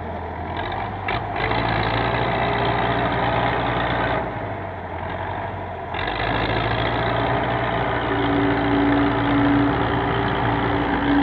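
Tractor's diesel engine running under load while its front loader works. The engine eases off about four seconds in and picks up again about two seconds later, and a steady whine joins it about eight seconds in.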